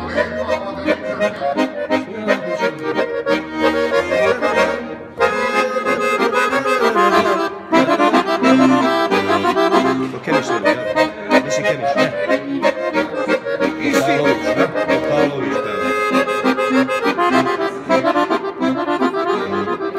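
Chromatic button accordion playing an instrumental passage between sung verses of a Serbian folk song, with quick runs of notes over a held accompaniment.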